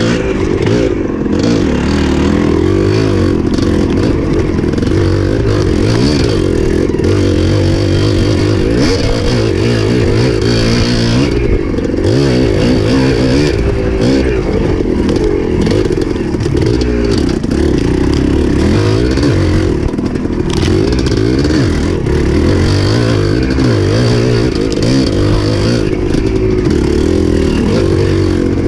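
Dirt bike engine under way, its revs rising and falling continuously as the throttle is worked.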